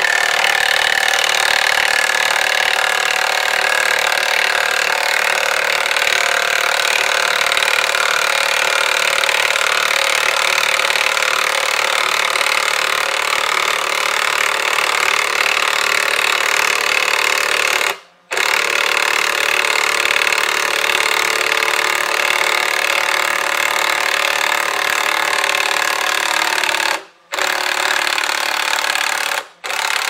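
Cordless drill running steadily under load as it drives the gearbox of a Forstreich TR30AQ mechanical felling wedge, jacking a back-leaning spruce over. It cuts out briefly three times in the second half.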